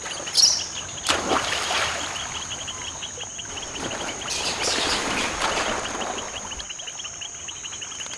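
Water splashing in several bursts as rhesus macaques swim and thrash through the water, the loudest about half a second in. Under it, insects keep up a steady rapid chirping.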